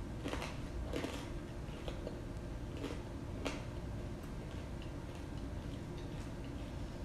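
Crispy rice-flour-battered potato waffle fries crunching as they are bitten and chewed: a few sharp crunches in the first few seconds, fainter ones after.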